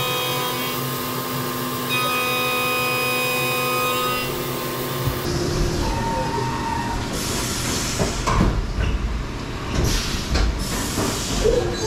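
Haas VF2 SS CNC vertical mill running its program with a face mill: a steady whine in several tones for about five seconds, then a rougher, noisier cutting sound with uneven surges as the face mill works the part.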